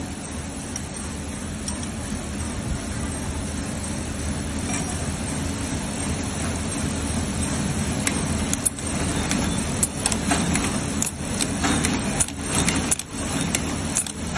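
Industrial shoe sole-stitching machine running, a fast steady metallic rattle as the needle stitches through the sole edge. From about halfway there are sharper clicks and brief dips in the sound.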